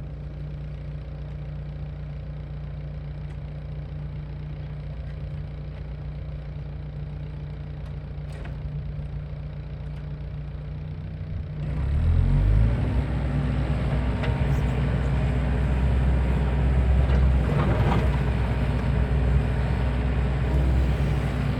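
An engine running steadily at a low, even speed; about twelve seconds in it becomes much louder and busier, running harder to the end.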